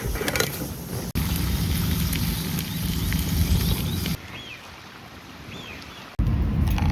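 Outdoor ambience cut together from several shots: a low rumble like wind on the microphone. In a quieter stretch in the middle, a bird calls twice with short rising-and-falling chirps.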